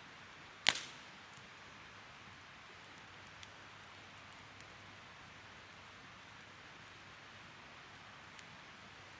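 Wood fire burning with a steady soft hiss, one sharp loud pop less than a second in, and a few faint crackles after it.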